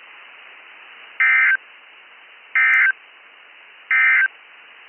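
Emergency Alert System SAME end-of-message signal on weather radio: three short bursts of buzzy digital data tones, about a second and a half apart, over steady radio hiss. The bursts mark the end of the high wind warning broadcast.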